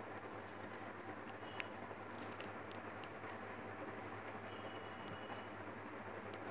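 Faint taps and rustles of hands handling a newspaper-wrapped stick and a cardboard cone, with one sharper tap about a second and a half in. Underneath is a steady hiss with a faint high-pitched whine.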